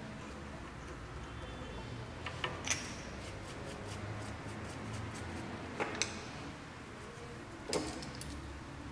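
Light metallic clicks and taps as a cut car key blade is pulled out of and slid back into the key machine's metal clamp, with a run of faint quick ticks midway.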